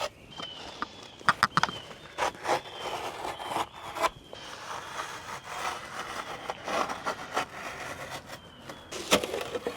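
Pocket knife scoring and cutting a GoBoard foam tile backer board, with irregular scratching and short clicks.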